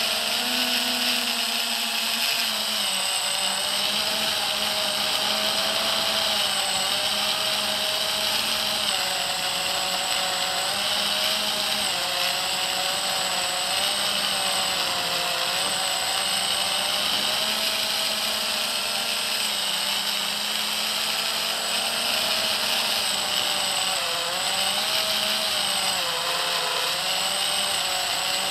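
FPV quadcopter's brushless motors and propellers whining, heard from the camera on board the quad; the pitch wavers up and down together as the throttle changes.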